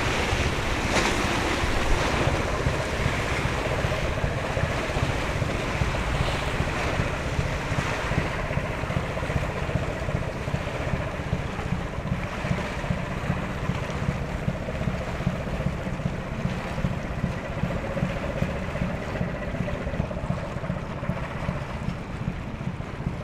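Wind buffeting the microphone over the wash of the sea, with the low, steady running of a small coastal cargo ship passing, easing slightly toward the end.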